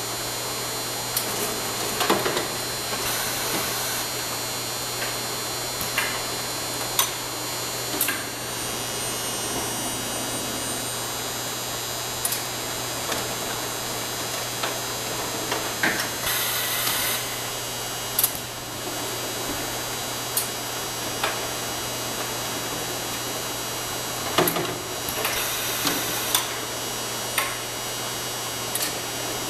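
Automated engine-rack storage buffer machinery running: a steady electrical hum under scattered clicks and clunks as the lift carriage and racks move. Three hisses of about a second each fall through it: one early, one midway and one near the end.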